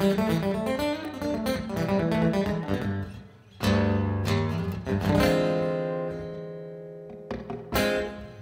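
Solo acoustic guitar: a run of picked notes, then, after a short gap about three seconds in, two full strummed chords left to ring out and slowly fade, with a few more notes near the end.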